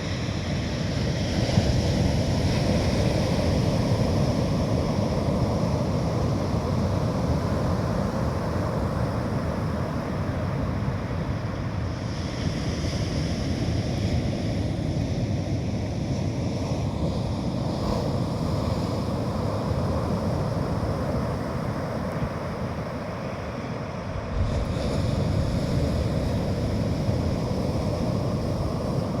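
Sea surf washing on a beach, with wind buffeting the microphone. The noise steps up abruptly about five seconds before the end.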